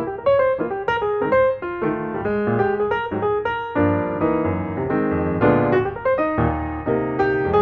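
Background piano music, a quick run of notes over a steady bass line.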